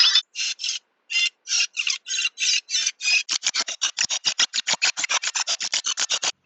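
FM clock radio auto-scanning for stations: short bursts of static hiss between muted gaps as it steps through the band, a few a second at first and quickening to about five a second from midway on.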